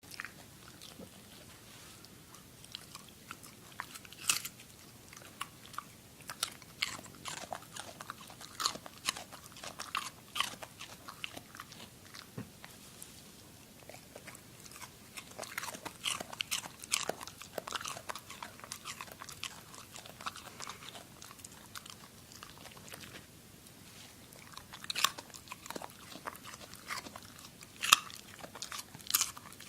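A pet biting and chewing a raw carrot: irregular sharp crunches, with short pauses between runs of bites and one loud crunch near the end.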